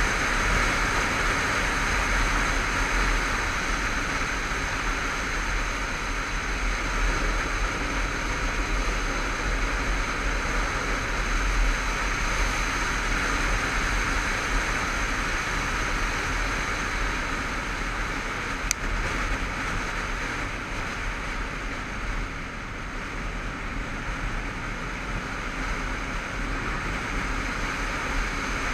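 Honda CBF500 motorcycle riding along at road speed: wind rushing steadily over the on-board microphone, with the parallel-twin engine running underneath as a low drone.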